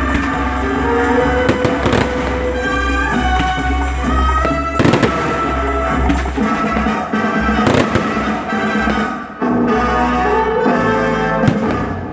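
Fireworks bursting with several sharp bangs a few seconds apart, over loud music playing the whole time.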